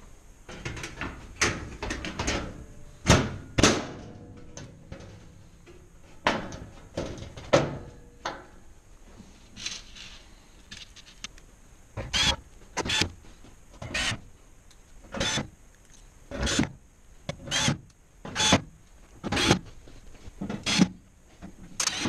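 Cordless drill-driver running in short trigger bursts, driving screws into the sheet-metal back panel of a range. The bursts are irregular at first, then from about halfway come evenly, roughly one and a half a second.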